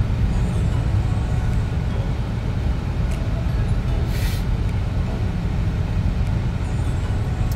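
Steady low rumble of a car driving on the road, heard from inside the cabin, with a short hiss about four seconds in.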